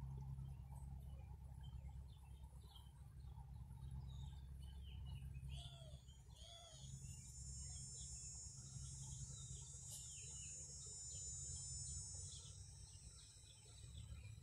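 Quiet yard ambience: scattered bird chirps over a low steady rumble, joined about six seconds in by a high, steady insect drone that fades out near the end.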